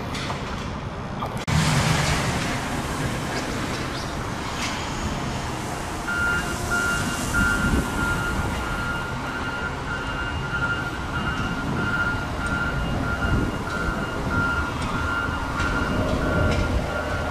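A work machine's electronic warning alarm beeping: one high tone repeating steadily, starting about six seconds in, over the low running noise of track-maintenance machinery.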